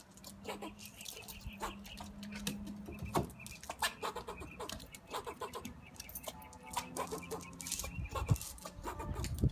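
Squirrel on a tree trunk: a run of short clicks and scratches from claws on bark, mixed with short clucking chatter calls. A faint low steady tone comes and goes, and there are heavier thumps near the end.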